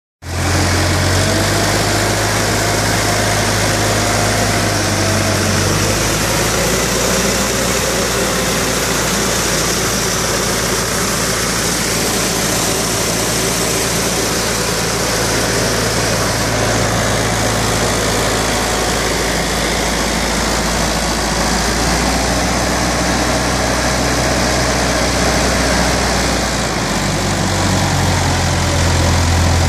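Tractor-driven trailed 2000-litre electrostatic air-blast sprayer running: a steady rush of air and spray from the sprayer's fan over the tractor engine's constant low drone.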